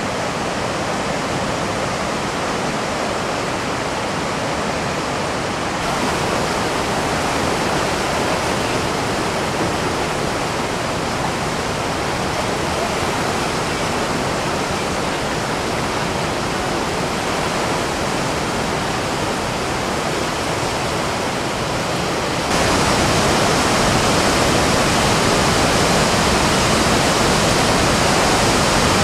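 Whitewater rapids of a big mountain river rushing over boulders, a steady dense roar of water that jumps louder about three-quarters of the way through.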